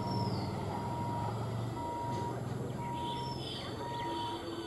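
An EMU local train approaches with a low steady hum. A high, single-pitched electronic beep repeats about once a second over the top, and a bird chirps briefly twice.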